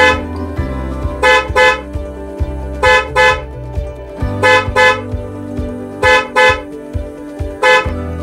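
Electric vehicle horn being test-sounded in short double toots, a pair about every second and a half, with a single toot near the end. A steady low hum runs underneath.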